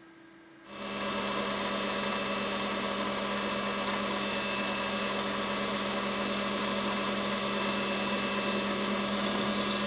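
Small metal lathe running, its motor and gearing giving a steady whine with several held tones, while a turning tool faces a shoulder on a spinning aluminium bar. The sound sets in suddenly under a second in.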